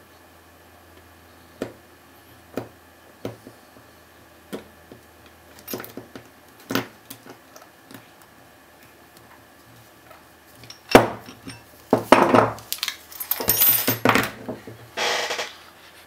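Scattered faint clicks of a Master disc-detainer padlock being worked with a tension tool and pick. From about eleven seconds in come louder metal clinks and rattles as the opened lock's shackle and body are handled on a wooden table.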